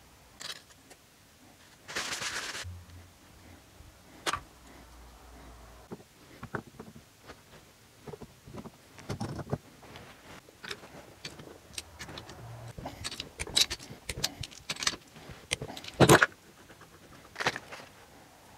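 Small metal engine parts being handled and set down on a workbench: scattered clicks, clinks and knocks, with a short noisy burst about two seconds in and one sharper knock near the end.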